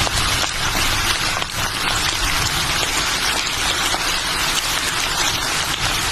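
Steady rain falling, a dense even hiss of many drops striking surfaces.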